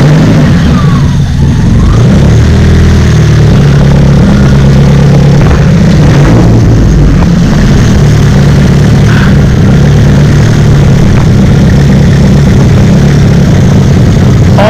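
Turbocharged SR20DET four-cylinder engine in a Nissan 200SX B14 running at a steady idle, just after being started.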